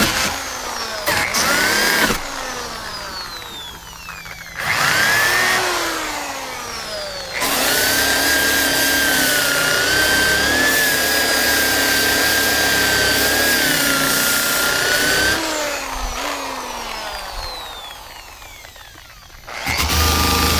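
Wire wheel on a power tool scrubbing rust from the truck's sheet-metal body, run in several bursts: a steady whine for about eight seconds in the middle, with the pitch sliding down each time the trigger is let go and the tool winds down, and starting up again near the end.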